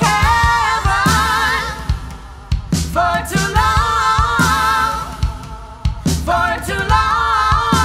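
Party band playing a song: several singers in harmony over drums and the rest of the band.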